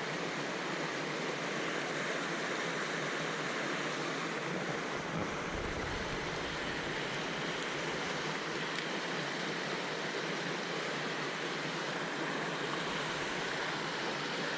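Mountain stream water rushing steadily. A brief low buffet of wind on the microphone comes about six seconds in.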